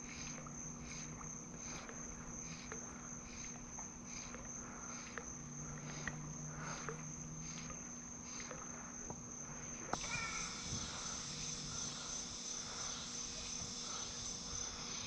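Insects calling in the evening: a steady high trill with a pulsing chirp about twice a second. About ten seconds in, a denser, louder buzzing chorus joins.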